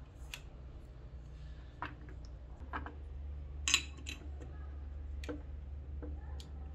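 Scattered small clicks and taps of a Manfrotto 055 tripod's centre-column parts being handled and fitted together, with one sharper click a little past the middle. A steady low hum runs underneath.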